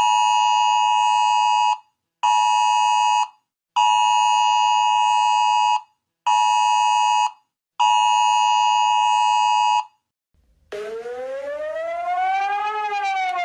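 Emergency warning signal: a steady, buzzy electronic alarm tone sounds five times in a long-short-long-short-long pattern. After a short pause a civil-defence siren starts, rising in pitch and then falling.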